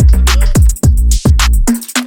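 Background electronic music with heavy bass drum hits, falling bass notes and fast hi-hats.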